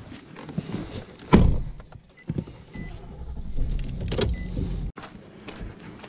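A loud thump about a second in at the pickup truck's open cab, then knocking and rustling of handling in and around the cab. A steady low hum follows and cuts off abruptly about five seconds in.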